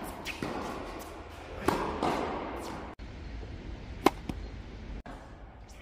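Tennis ball struck with a racket on overhead smashes. A hard hit comes about two seconds in with a second impact close behind it, both echoing in a large indoor hall. A single short, sharp hit with no echo follows about four seconds in.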